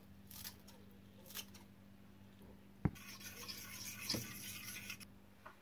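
Kitchen scissors snip chives a few times, then a sharp clink a little before halfway. For the last couple of seconds a fork beats eggs briskly against the side of a ceramic bowl, a fast scratchy rattle.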